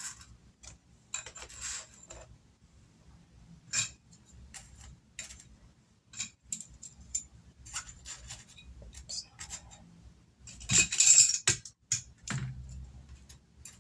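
Oracle cards and their deck being handled: scattered light clicks, taps and rubbing, with a louder rustle of cards about eleven seconds in.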